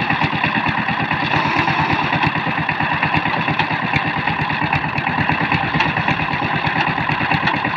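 Two-wheel power tiller's single-cylinder diesel engine running steadily, with a fast, even train of firing beats.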